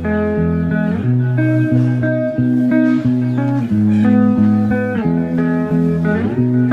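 Background music: a guitar tune over a bass line, the notes changing about every second, with a sliding note near the end.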